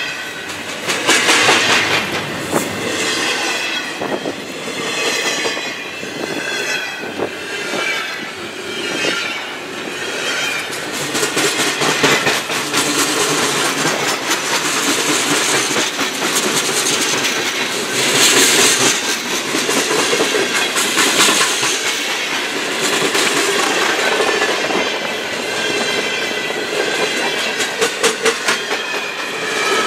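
Freight cars of a long mixed freight train rolling past, steel wheels clicking steadily over the rail joints. A high wavering wheel squeal comes in during the first few seconds and again near the end.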